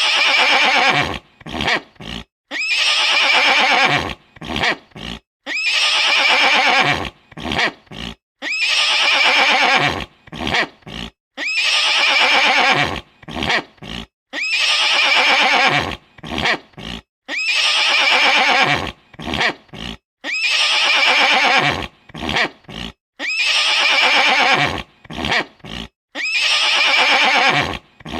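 Horse whinnying: a loud, wavering neigh of about a second followed by three or four short, sharp breaths. The same call repeats as a loop about every three seconds.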